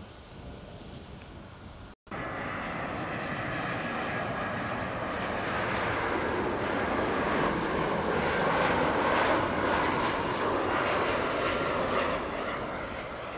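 Jet engines of an Airbus A320-family airliner on final approach with its gear down, passing close by: a steady jet noise that builds to its loudest about halfway through and eases slightly near the end. It follows an abrupt cut about two seconds in from fainter wind noise.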